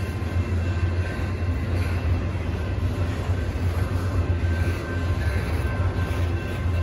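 Intermodal freight train rolling past, its container and trailer cars giving a steady low rumble on the rails.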